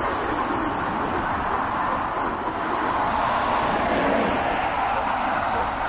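Steady jet noise of a Boeing 747-400's four turbofan engines on final approach to land, swelling slightly a few seconds in.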